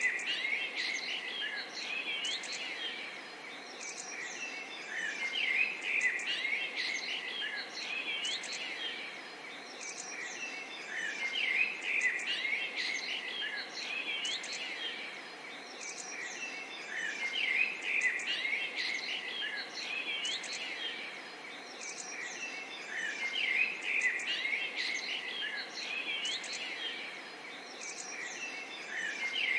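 A dense chorus of many small birds chirping and twittering at once: quick, overlapping high chirps over a steady hiss. The chorus swells and eases about every six seconds.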